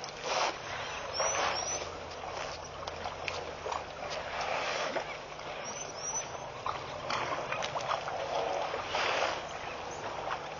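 Water sloshing and splashing at a waterhole as a herd of African elephants drinks, with scattered knocks and a couple of brief high chirps.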